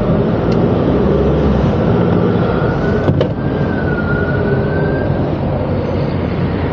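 Motorhome engine running steadily as the vehicle pulls away and rolls forward at low speed, heard from inside the cab. There is a single click about three seconds in, and a faint thin wavering tone in the middle.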